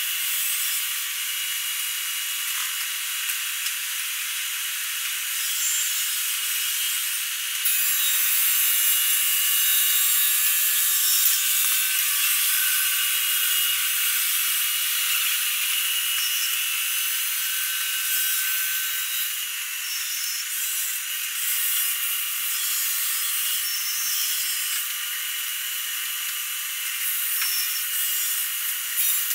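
Arm-mounted marble polishing machine, its spinning pad grinding over a wet Ziarat marble slab as a steady, hissing scrape. It gets louder for a few seconds from about eight seconds in.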